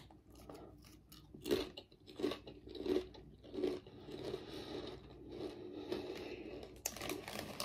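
Ridged Estrella Grill potato chips being bitten and chewed: a few sharp crunches about two-thirds of a second apart, then softer steady chewing.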